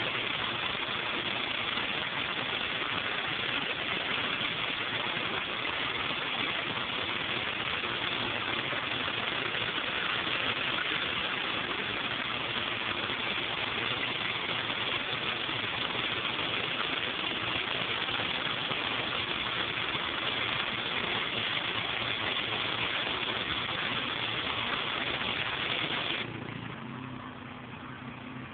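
Pressure washer with a turbo nozzle blasting water onto a concrete sidewalk: a loud, steady hiss of spray over the running engine. Near the end the spray stops and only the pressure washer's engine is left running with a steady hum.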